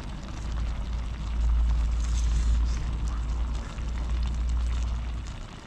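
A deep, uneven rumble that swells about a second and a half in and fades near the end, with faint scattered ticks over it.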